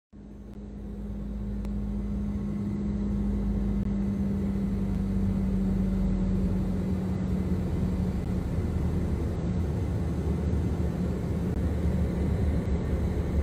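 Private jet cabin noise in flight: a steady low drone of engines and airflow with a constant hum. It rises in over the first couple of seconds and then holds steady.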